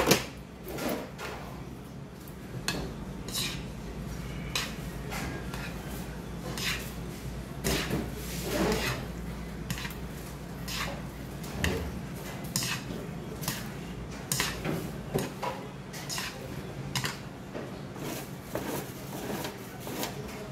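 Stainless steel chopsticks and spoon clinking and scraping against a ceramic bowl as jjajangmyeon noodles are stirred into their black bean sauce: irregular clinks, the sharpest right at the start.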